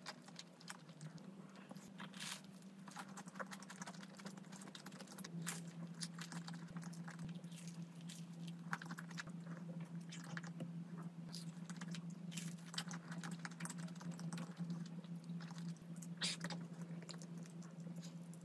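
Close-miked eating sounds: chewing and crisp crunching of croffle and berries with thick Greek yogurt. A steady low hum runs underneath.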